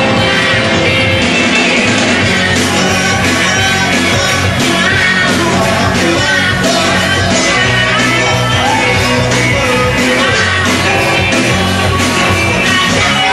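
Rock band playing a song live, with a lead vocalist singing over the band.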